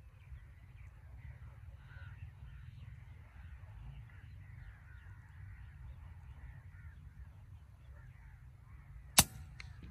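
Birds calling faintly over a low rumble, then about nine seconds in a single sharp report from the Artemis P15 PCP air rifle firing, followed by a couple of small ticks.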